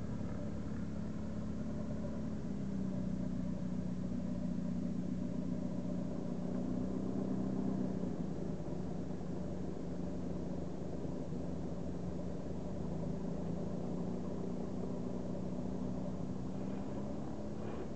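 A Cessna 172C's Continental O-300 six-cylinder engine and propeller droning steadily as the plane flies its approach to land, the pitch dropping slightly a couple of seconds in.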